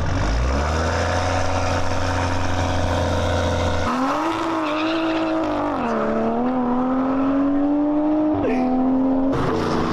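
Car engines at a street car meet: a low, steady engine note for the first few seconds, then from about four seconds in an engine revving, its pitch dipping and then climbing, with a step up near the end.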